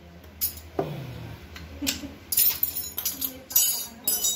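Metal parts clinking and knocking in a series of separate sharp strikes, the sound of hand tools or a loose drive chain being handled on a tricycle.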